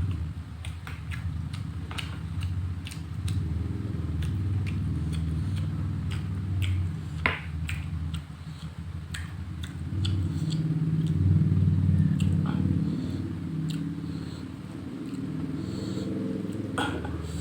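Close-miked chewing and mouth noises of someone eating rice and fish: frequent short wet smacks and clicks over a steady low rumble.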